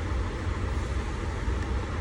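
Idling truck engine: a steady low rumble with an even hiss above it.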